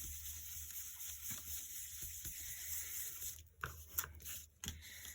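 Faint rubbing and scuffing of Distress Oxide ink being blended around the edges of cardstock, with a few brief ticks near the end.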